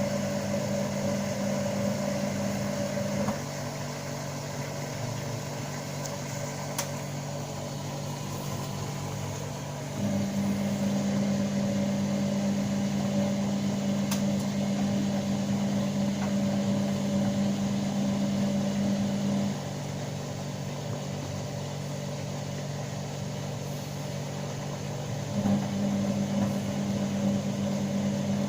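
Balay T-8295 washing machine spinning: a steady motor hum at an unchanging pitch that steps between louder and quieter stretches several seconds long, louder at the start, again from about ten seconds in to about twenty, and again near the end.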